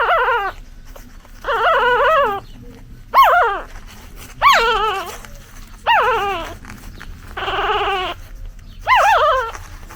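Newborn puppy crying: seven high-pitched cries about a second and a half apart, each falling in pitch. These are the calls a newborn puppy makes for its mother.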